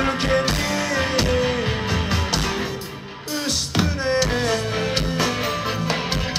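Live rock band playing, with guitars over a drum kit. The music dips briefly about three seconds in, then comes back in strongly.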